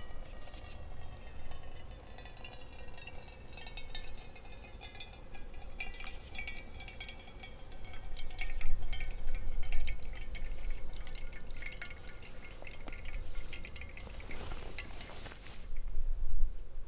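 Liquid poured in a thin trickling stream for drip coffee, with a ringing tone and small splashes, swelling briefly near the end.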